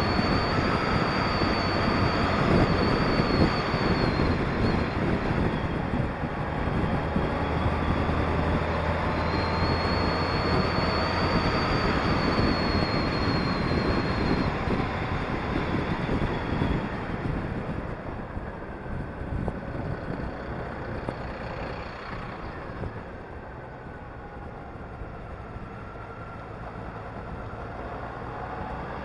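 Honda Gold Wing touring motorcycle riding at road speed, with engine, tyre and wind noise on the bike-mounted microphone and a faint whine rising and falling with the throttle. The noise eases off after about two-thirds of the way through as the bike slows for a hairpin bend, then builds slightly near the end.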